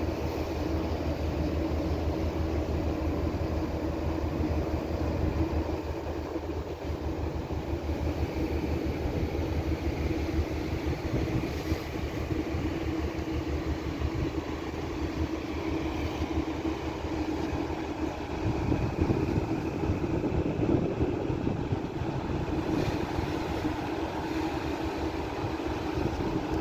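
Steady drone of a ship under way: a continuous engine and machinery hum over the rush of water along the hull.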